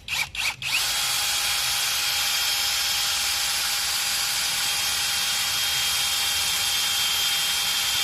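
A 20 V brushless electric drill turns a large hollow soil auger bit into the ground. It gives a few short trigger blips, then about a second in runs steadily at full speed with a constant high whine.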